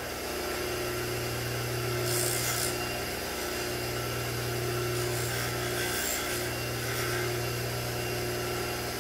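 Bench grinder fitted with a deburring wheel, its motor running steadily, while a formed steel bracket is held against the wheel to take off tool marks. The rubbing grows louder and hissier twice, about two seconds in and again around five seconds in.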